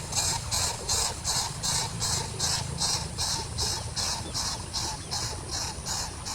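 Steady rhythmic high-pitched pulsing, about four pulses a second, with faint short chirps beneath.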